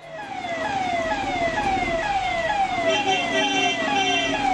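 Siren sounding in quick, repeated falling sweeps, about two and a half a second. A second, higher tone layers in about three seconds in.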